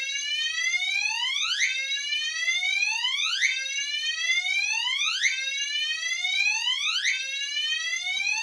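Fire alarm voice-evacuation system sounding a whoop tone: a rising sweep that repeats about every 1.8 seconds, set off by the activated CO detector.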